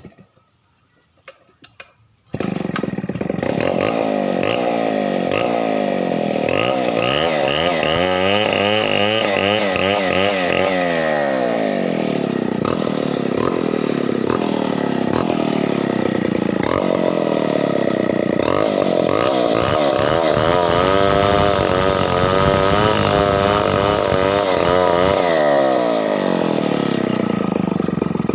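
Two-stroke chainsaw running hard, coming in suddenly about two seconds in, its engine pitch repeatedly rising and falling as the speed changes.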